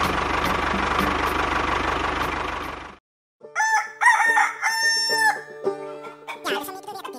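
The miniature model tractor's motor running steadily with a fast low pulse, fading out about three seconds in. After a short silence a rooster crows over light background music.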